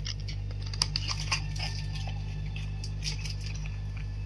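Light clicks and rustles of hands handling the Intel Core i5 processor's retail box and packaging, over a steady low hum. The sharpest clicks come about a second in.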